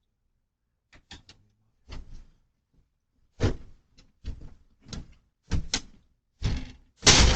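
A locked mailbox being forced or rattled: a run of sharp knocks and clatters that grow louder and closer together, with the loudest bang near the end.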